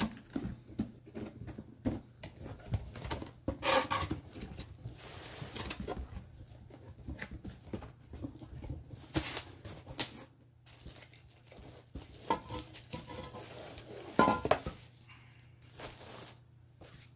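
Cardboard box being opened and unpacked by hand: flaps and cardboard inserts scraping and tearing, and a plastic bag crinkling, with several louder rustles and knocks along the way.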